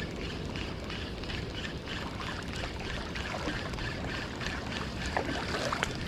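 Daido Dark Knight 2000 spinning reel being cranked to retrieve line, a whirring that pulses about four times a second with each turn of the handle, with a few light clicks near the end.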